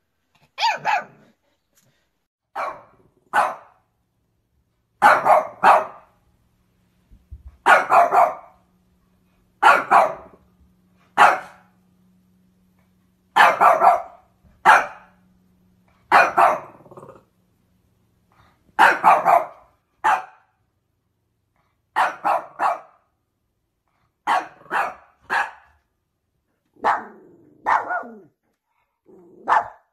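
A dog barking in short sharp barks, mostly two or three at a time, with brief pauses between the groups.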